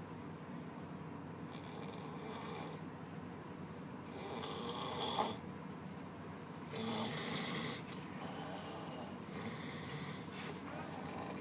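A large man snoring loudly in deep sleep: about five harsh rasping snores, one every two and a half seconds or so, the loudest about five seconds in. Beneath them runs a steady low hum.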